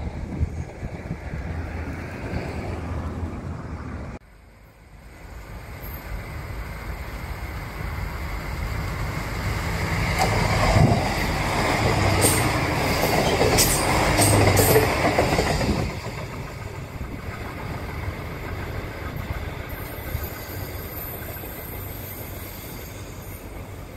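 A diesel railcar passing over the level crossing: its rumble builds for several seconds, peaks with clattering wheels and sharp high squeaks, then drops away and fades as it moves off.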